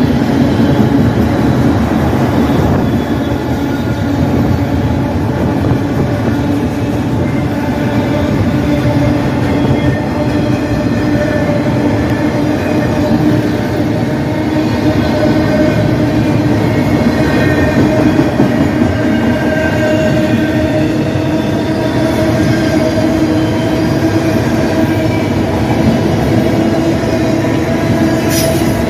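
CN freight train of autorack cars rolling steadily past close by: a continuous loud rumble of steel wheels on rail, with a steady ringing tone running through it.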